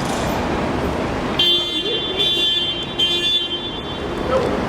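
Road traffic noise with a car horn sounding for about two seconds, starting about a second and a half in.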